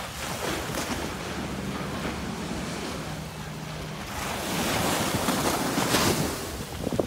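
Small waves washing onto a sandy beach, swelling louder about halfway through as one breaks and runs up the sand, with wind buffeting the microphone. A faint low hum sits under it early on.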